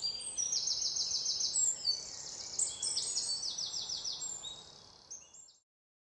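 Birds singing and chirping, with several high rapid trills, over a faint outdoor hiss; the birdsong fades out about five seconds in.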